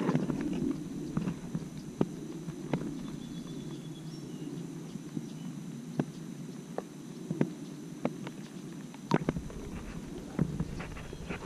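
Water sloshing and lightly splashing as a largemouth bass is held by the lip at the surface and released, with scattered small clicks and knocks. A low rumble comes in near the end.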